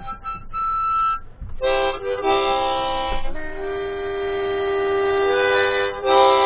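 Harmonica played in long held chords, several notes at once, a short single note first and then chords that change about every couple of seconds.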